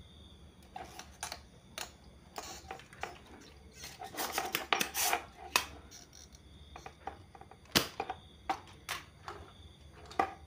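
Irregular clicks, taps and scrapes of soldering tools on a TV power supply board, busiest around the middle, with one sharp click about three-quarters of the way through as a desoldering pump is used.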